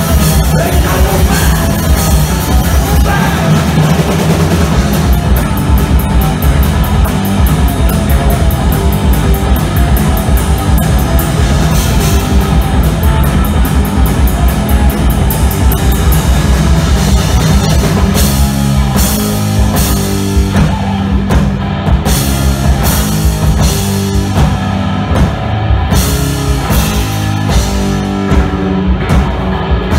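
Punk rock trio playing live and loud: distorted electric guitar, bass guitar and drum kit. The drums keep a fast, even beat for a while, and later in the passage the band switches to stop-start hits with short breaks between them.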